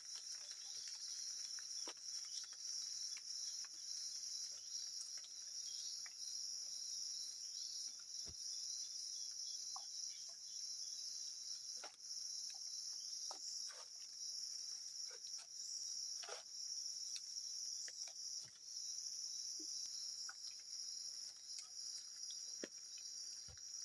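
Steady high-pitched insect chorus trilling continuously, with scattered small clicks and snaps here and there.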